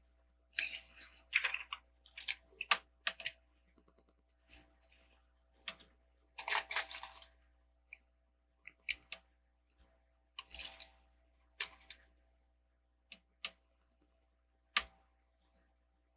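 Plastic Lego bricks clicking and rattling as they are handled and pressed together, in short irregular clusters of clicks with pauses between.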